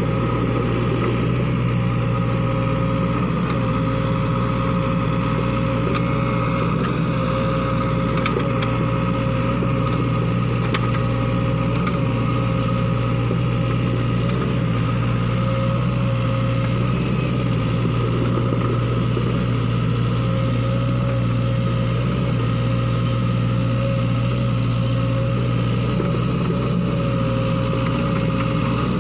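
Sany SY55C mini excavator's diesel engine running steadily under working load while it digs, with a constant high whine above the engine note and a few faint clicks.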